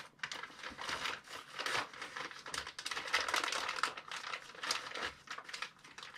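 Plastic cable ties being rummaged through and handled, giving irregular rustling and crinkling with many light clicks.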